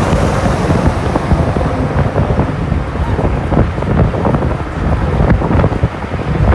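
Wind buffeting the microphone: a loud, uneven rumble that rises and falls throughout.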